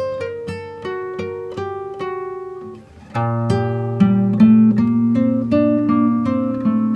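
Background music: acoustic guitar playing single plucked notes, then fuller chords from about three seconds in.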